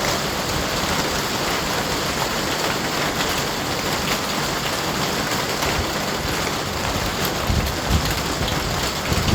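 Steady rain: an even hiss of falling water with scattered individual drop ticks. Some low rumbling surges come in near the end.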